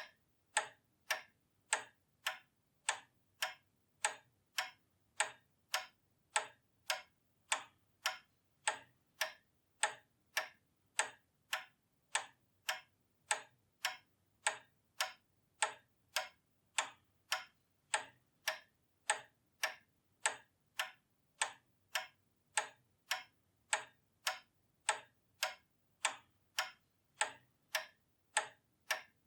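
Pendulum clock ticking: sharp, even ticks at a steady beat, somewhat faster than one a second.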